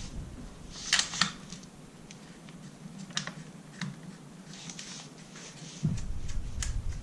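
Scattered light metallic clicks and clinks of shotgun parts being handled at the barrel during reassembly, the loudest a quick pair about a second in, with a low handling rumble near the end.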